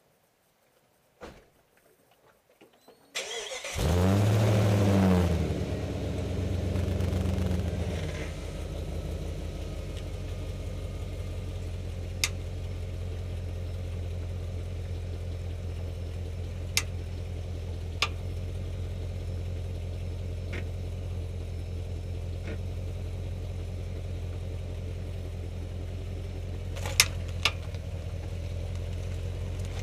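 Jeep Grand Cherokee WJ engine cranked and catching about three seconds in, running fast for a few seconds, then settling to a steady idle. A few sharp clicks sound here and there over the idle.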